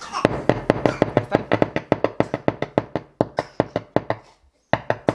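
Two woofers in a speaker cabinet giving quick, fairly even pops, about seven a second, as a battery is tapped on and off their wires: a polarity check that both speakers are moving. The popping stops briefly near the end, then starts again.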